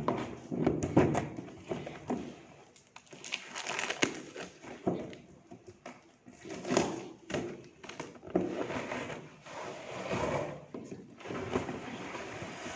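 A toy car's cardboard box being opened and its packaging handled: irregular rustling, scraping and short knocks, coming in uneven bursts.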